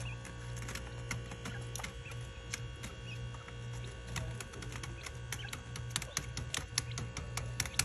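Quail pecking and scratching at newspaper on a cage floor: irregular sharp ticks, coming more often in the second half, over a steady low hum.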